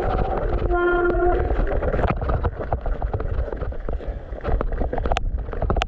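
Industry Nine rear hub buzzing steadily as the bike coasts, the buzz stopping about a second and a half in. After that the tyres roll over the trail with a low rumble, and sharp clicks and rattles from the bike come near the end.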